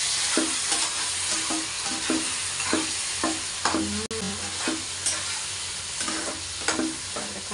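Onions, capsicum and sauces sizzling in a wok over a gas flame while a spatula stirs and scrapes the pan, about two strokes a second.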